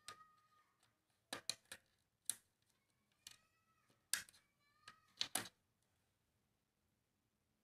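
Hard plastic toy playset parts clicking and knocking as pieces of a Tomica car wash are snapped and fitted together: sharp clicks in two clusters, with a faint high-pitched wavering call a little after the middle.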